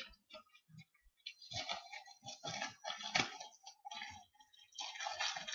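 Plastic packaging being worked open by hand: a run of irregular crinkling and rustling bursts that starts about a second in and keeps going.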